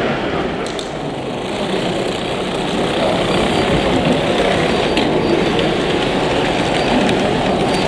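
Steady hall din around a running Märklin H0 model railway layout, with model trains rolling over the track and a few faint clicks.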